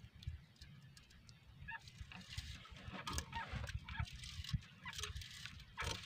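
Faint clicks and rattles of a hand spool of multi-hook fishing line being handled, over a steady low rumble. A few short squeaks that rise and fall in pitch come through in the middle.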